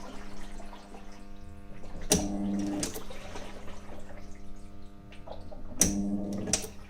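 Hitachi NW-6AZ washing machine's non-inverter, belt-driven motor humming steadily. Twice, about 3.7 seconds apart, the motor surges for just under a second, each surge starting and ending with a sharp click.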